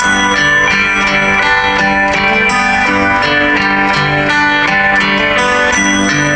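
Music: a guitar-led song playing, with strummed guitar and steady, changing chords.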